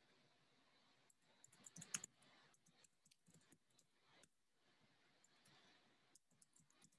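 Near silence with faint, scattered computer keyboard clicks, a small cluster about two seconds in.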